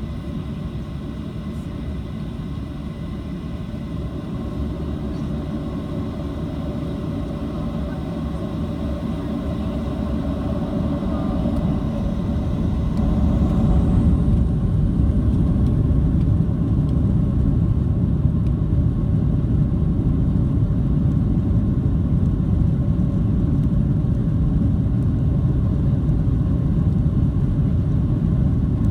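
Cabin noise of a Boeing 737-700 with its CFM56-7B turbofans: a dense low rumble that builds steadily for about a dozen seconds, with a faint rising whine, then holds loud and steady, as the engines spool up to high power.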